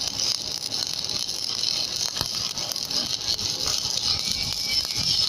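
Stick-welding arc crackling and sizzling steadily as the electrode burns, a dense hiss with many small pops.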